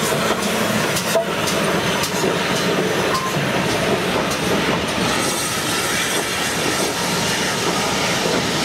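A steam-hauled passenger train passing close by. GWR 2-6-2T tank locomotive 4160 goes by first, then its coaches roll past with a steady rumble of wheels on the rails and a few clicks.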